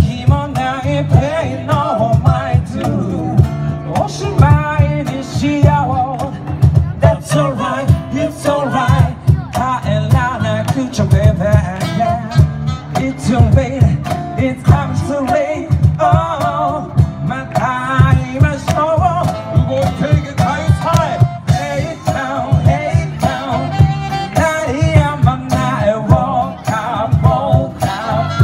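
Live band playing a song with a steady beat: a man sings into a microphone over saxophone, acoustic and electric guitar, and box-drum percussion with cymbals.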